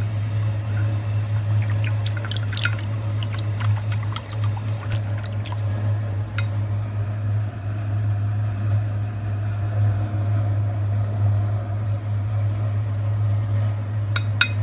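A saturated solution being stirred with a wooden chopstick in a glass container sitting in a hot-water bath: liquid swishing and bubbling, with scattered light clicks of the stick against the glass, most of them in the first half and near the end. A steady low hum runs underneath.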